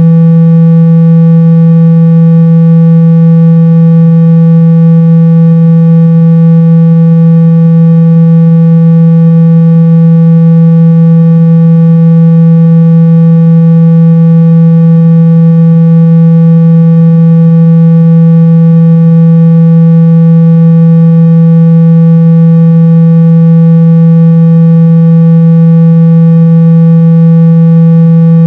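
Phone speaker-cleaning tone: a single loud, steady low tone that is played without a break to shake dust out of a phone's speaker grille.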